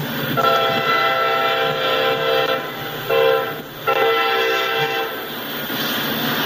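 A diesel locomotive horn on the lead EMD SD40-2 sounds a long blast, a short one and a third blast ending about five seconds in. Under it runs the steady noise of tank cars rolling past on the rails.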